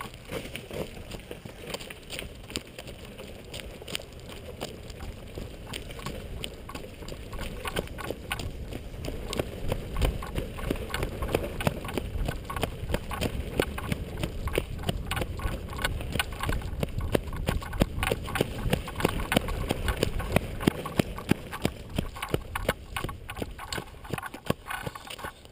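Board wheels rolling over rough, leaf-strewn pavement and then dirt, a steady low rumble with many small irregular clicks and knocks from grit and from the land-paddle stick striking the ground. The rolling gets louder and busier from about ten seconds in.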